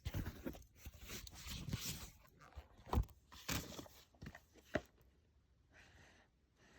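Packaging and an unboxed item being handled: irregular rustling, a sharp knock about three seconds in, then a few lighter clicks and rustles that die down.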